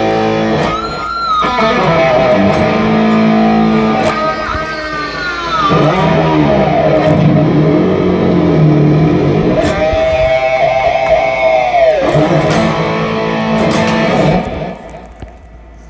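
Electric guitar played through an amp: a loud lead with long held notes, several of them bent or dropping in pitch, dying away near the end.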